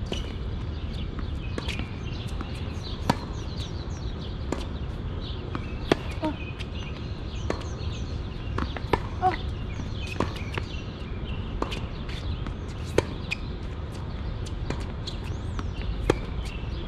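Tennis balls struck by rackets and bouncing on the court, sharp pops every one to three seconds over a steady low rumble, with small birds chirping now and then.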